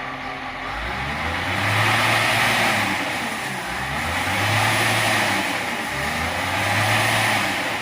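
Caterpillar 950H wheel loader's C7 diesel engine revved up and let back down three times in a row, a throttle-response test that the mechanic judges okay. The engine is being tested for unstable, misfire-like running linked to atmospheric pressure sensor fault codes.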